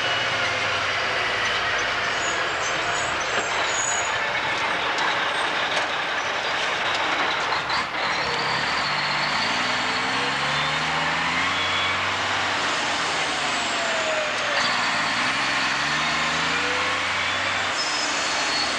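Mack dump truck's diesel engine working through the gears while driving: its pitch climbs and drops back at each shift several times in the second half, with a gear whine rising and falling above it.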